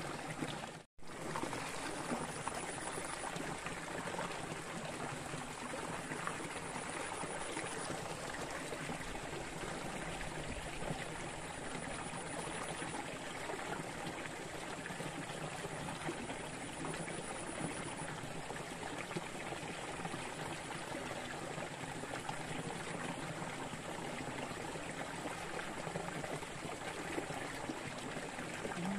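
Water in a small ditch running and trickling over stones: a steady, even rush that cuts out for an instant about a second in.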